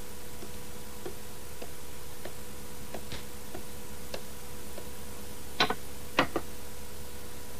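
A clock ticking slowly and evenly, a tick roughly every half-second. Near the end come a few louder clinks of crockery as plates are set down on the table.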